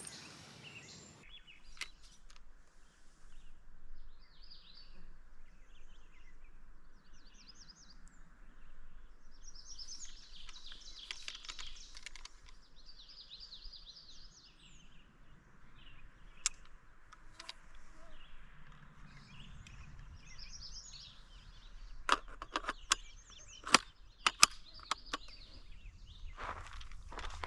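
Songbirds chirping and calling in short scattered phrases against quiet outdoor background noise. Near the end, a run of sharp clicks and knocks.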